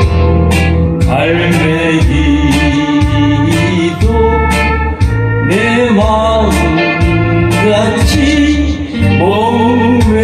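Korean trot song: a singing voice with wide vibrato over a band accompaniment with a steady bass beat.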